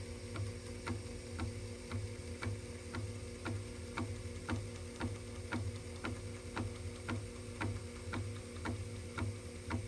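Opened Commodore floppy disk drive running, its head stepper clicking about twice a second as it moves the read/write head from track to track, over the hum of the drive motor.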